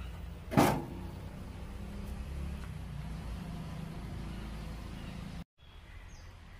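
A single heavy thump about half a second in as the metal mixer pre-amp cabinet is set down on a wooden table, followed by a steady low rumble that cuts off abruptly near the end.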